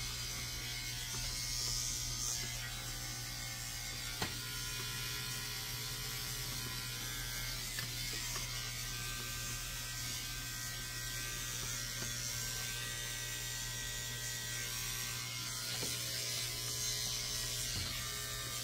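Wahl KM10 electric dog clipper running steadily while trimming the hair on a schnauzer's face, with one short click about four seconds in.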